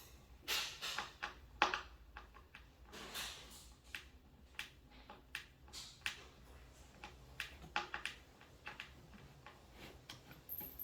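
Scattered light clicks and knocks with a few brief rustles: screws and cabinet parts being handled and fitted during flat-pack cabinet assembly.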